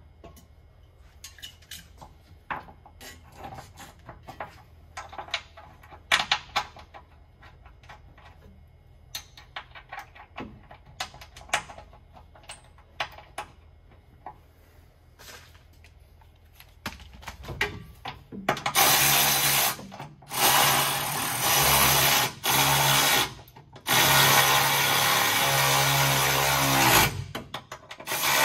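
Light metal clinks and taps as a steel exhaust hanger is fitted by hand, then a cordless power tool runs in three bursts of a few seconds each, fastening the hanger to the frame.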